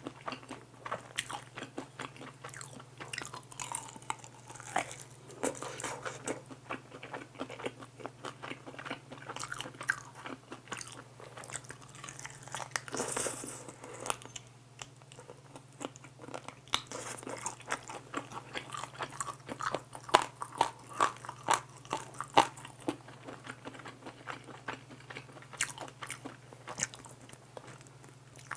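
Close-miked eating of soy-garlic glazed fried chicken wings: crisp crunching bites and chewing, with many sharp crackles.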